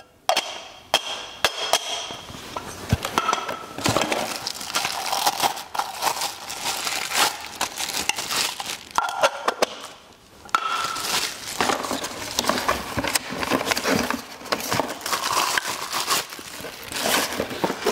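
Packaging crinkling and rustling as it is torn open and handled, with many small clicks and knocks. It stops briefly about ten seconds in.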